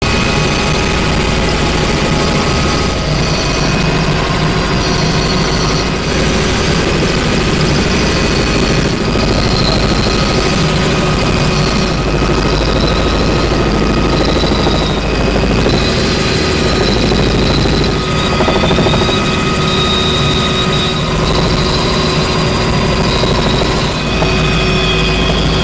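Helicopter engine and rotor noise heard inside the cabin: a loud, steady drone with several constant tones and a high whine that wavers slightly in pitch.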